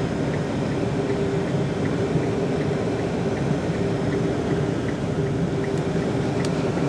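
Steady running noise of a moving car: engine hum and road noise at an even level, with a faint ticking about three times a second.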